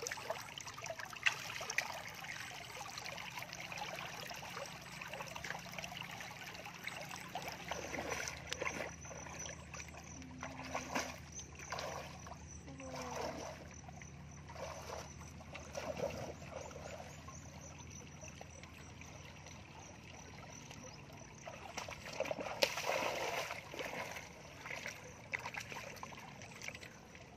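Shallow muddy water trickling and splashing around bare feet wading through a flooded rice paddy, with a burst of louder splashing near the end.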